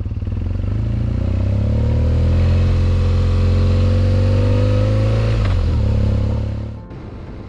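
BMW R1200GS Adventure's boxer twin engine pulling away and accelerating, its pitch climbing steadily, with a short break about five and a half seconds in before it runs on. The sound cuts off abruptly near the end.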